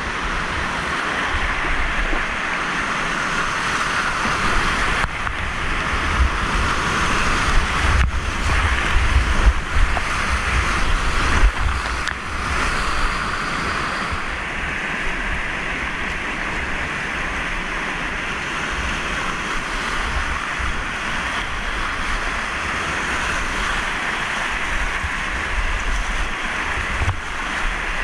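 Whitewater rapids rushing loudly and steadily around a kayak, with a low rumble of wind buffeting the microphone. A few sharp splashes stand out between about five and twelve seconds in.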